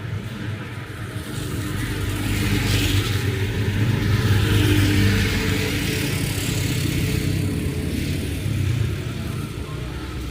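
A motor vehicle driving past on a wet road. Its engine hum and the hiss of tyres through water swell to a peak about halfway through, then fade.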